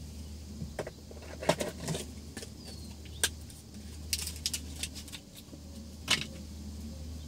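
Inside a parked car: a steady low hum with a scattering of sharp clicks and knocks, like small objects being handled in the cabin, the loudest about a second and a half in and again near the end.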